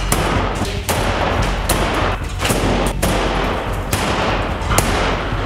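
Repeated heavy blows on the control dome's steel wall panels during demolition: a sharp bang every half second or so, irregular, over a continuous rough clatter.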